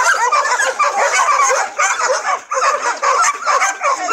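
Many dogs barking and yipping at once in a continuous, overlapping chorus.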